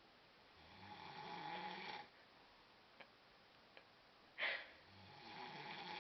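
A sleeping person snoring: two drawn-out snores, one in each breath, about four seconds apart. Between them comes a short, sharp noise, the loudest sound of all.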